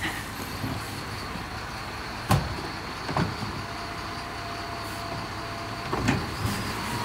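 Mercedes-Benz Econic bin lorry running while a wheelie bin is rolled up to its Terberg OmniDEL electric bin lifter and lifted to tip. There are sharp knocks of the plastic bin against the metal lifter, the loudest about two seconds in, and a steady electric hum from the lifter as the bin goes up, ending just before a final knock near the end.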